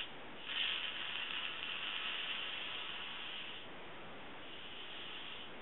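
Aerosol hairspray can spraying: one long hiss of about three seconds, then a fainter second spray near the end.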